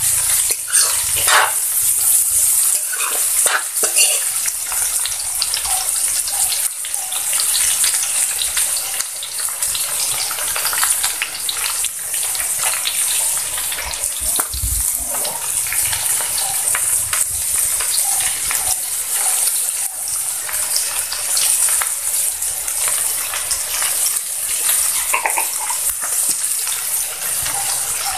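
Stir-fried vegetables sizzling steadily in an aluminium wok, with a metal spatula scraping and clicking against the pan in the first few seconds.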